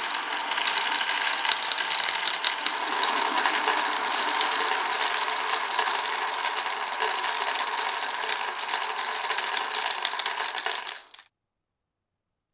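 Many marbles rolling and clattering together along a wooden marble run track, a dense, continuous rattle of small clicks that cuts off suddenly near the end.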